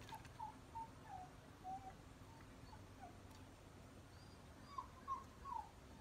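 Faint series of short animal calls, single brief notes that dip or fall in pitch, spaced out at first and coming faster near the end.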